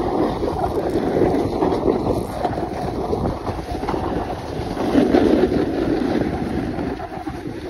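Wind rushing over a handheld phone's microphone during a snowboard descent, mixed with the board scraping and hissing over packed snow. The rush swells about five seconds in and eases near the end.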